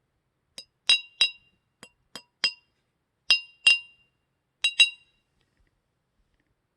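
Wine glasses clinking, about ten short, bright clinks that ring briefly, several coming in quick pairs.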